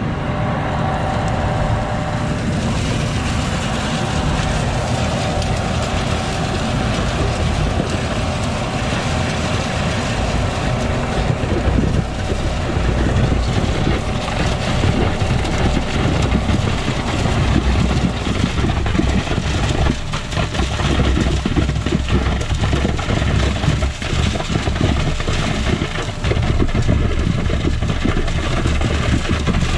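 Concord concrete line pump's engine running steadily under load while it pushes concrete through the hose into a drilled pier hole, with a deep rumble throughout and a few brief dips in level in the second half.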